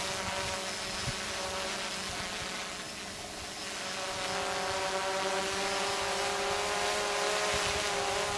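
TBS Discovery quadcopter's motors and propellers hovering high overhead: a steady multi-toned buzz that wavers slightly in pitch and dips briefly about three seconds in. It is holding position on its own in the DJI Naza's failsafe after losing radio signal. Wind rumbles on the microphone.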